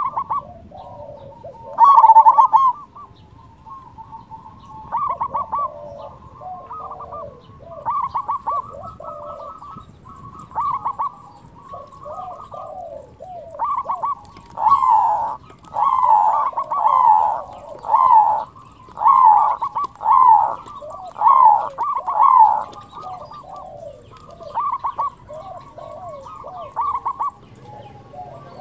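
Local zebra dove (perkutut) singing its cooing song, phrase after phrase. The phrases come sparsely at first, then in a louder, rapid run of about nine phrases from about halfway in.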